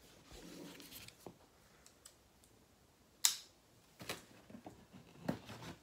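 Handling noises at a desk: light rustling, then scattered clicks and knocks, the sharpest one about three seconds in, as a tool is reached for and picked up.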